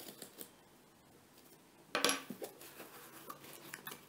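A cardboard shipping box being cut open and unpacked by hand: faint scraping and clicks, a sharp clack about halfway through, then cardboard rustling and small knocks as the flaps are pulled open.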